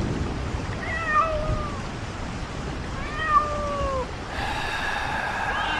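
Cat meowing as a horror sound effect: two drawn-out, downward-bending meows about two seconds apart, over a steady background hiss, with a long held, higher tone coming in near the end.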